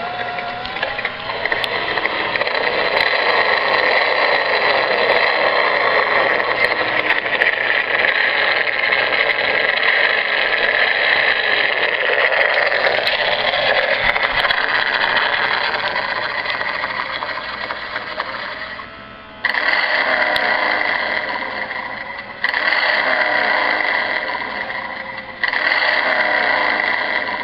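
Plastic toy Harley-Davidson Twin Cam 88 engine playing its electronic engine sound through a small speaker while its moving parts run. The sound sags and then starts again suddenly three times in the last ten seconds.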